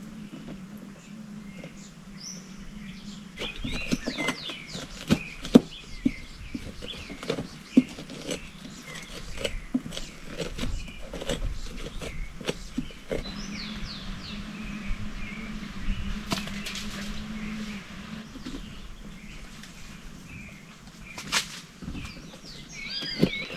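Birds chirping and calling, with a run of sharp knocks and clicks from about three to thirteen seconds in and another strong knock near the end, over a steady low hum.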